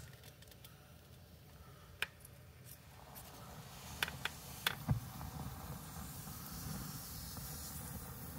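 Flakes of cured nitrocellulose lacquer burning: a few sharp crackles between about two and five seconds in, then a faint steady rushing hiss of flame that slowly builds as the sheet flares up.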